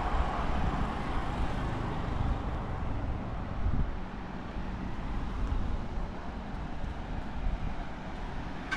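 Road traffic: a passing vehicle fades away over the first few seconds, leaving a steady low engine hum.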